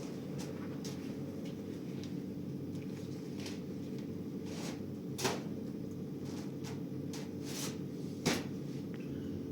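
Scattered light knocks and clicks, the two loudest about five and eight seconds in, over a steady low hum.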